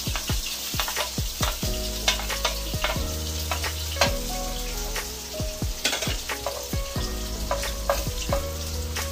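Garlic, onion and ginger sautéing in hot oil in a frying pan: steady sizzling with frequent crackles and pops, while a wooden spoon stirs them.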